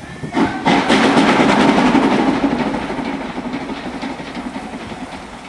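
LMS Royal Scot class steam locomotive 46115 Scots Guardsman working a train, with steam hissing from its open cylinder drain cocks and the wheels clattering on the track. The sound swells suddenly about half a second in, stays loudest for a couple of seconds, then slowly fades.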